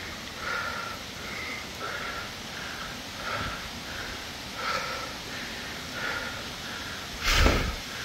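A hiker's heavy breathing while walking uphill, short puffs repeating about every half to two-thirds of a second. A loud thump about seven seconds in.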